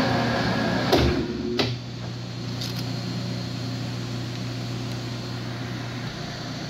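Ikegai engine lathe and die grinder with a v-groove router bit being shut down: the running machine noise winds down in pitch, two sharp clicks come about one and one-and-a-half seconds in, and a steady low hum is left.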